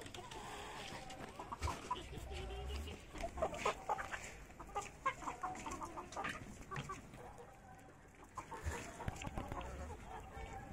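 Chickens clucking as they feed on sprouted wheat grass, a run of short scattered calls with a few sharp taps among them.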